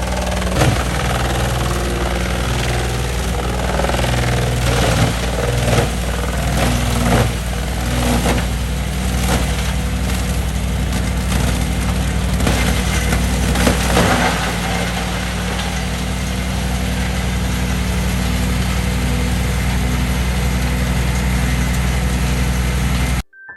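Engine-driven wood shredder running steadily under load, with repeated cracking and crunching as cedar logs are ground up. The cracking thins out about halfway through, leaving mostly the steady engine and cutter drone, and the sound cuts off abruptly near the end.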